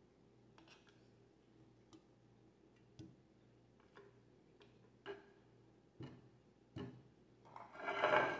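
Boiled potatoes dropped one at a time into a glass jar of seasoning, each making a soft knock against the glass, about once a second. Near the end a longer, louder clatter as the last potatoes are slid off the plate into the jar.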